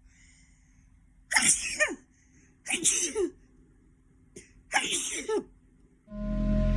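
Three loud sneezes in a row, about a second and a half apart, brought on by sneezing powder, after a faint sniff. Soft new-age music with a steady drone comes in near the end.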